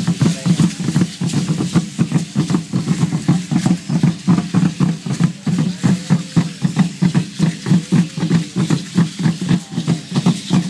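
Drumming for Aztec ceremonial dance: a drum struck in a fast, steady, even beat of about four strokes a second.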